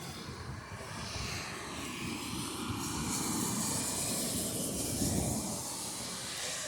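Road vehicle moving through the rain, heard from inside: a steady low engine and road rumble with tyre hiss from the wet road, swelling in the middle and easing near the end.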